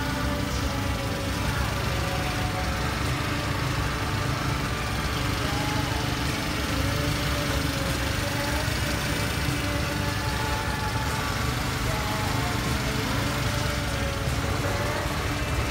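Subaru Sambar truck's EN07 four-cylinder engine idling steadily, heard close up through the open engine hatch.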